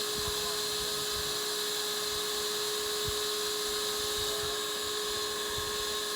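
A small electric motor whirring steadily with a constant high hum over a hiss.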